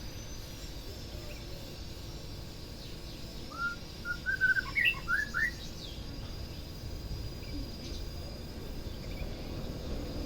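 White-rumped shama (murai batu) singing one short phrase of clear whistled notes that jump up and down in pitch, starting about three and a half seconds in and lasting about two seconds, over a low steady background rumble.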